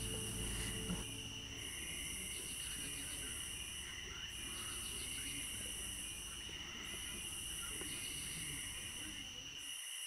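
Night insect chorus: crickets keeping up a steady high trill, with a higher buzzing that comes in stretches of about two seconds separated by short breaks. A low rumble underneath cuts off near the end.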